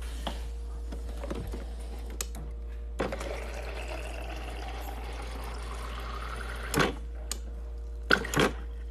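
Water from a refrigerator door dispenser runs into a plastic squeeze bottle for about four seconds. The pitch rises steadily as the bottle fills, and the flow stops with a click.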